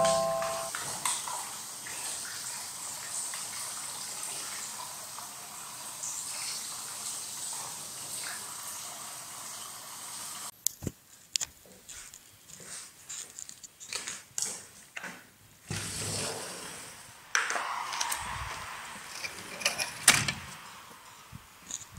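Water running steadily from a kitchen tap into a soft plastic water carrier, filling it. About halfway through, the running water stops and scattered knocks and rustles follow.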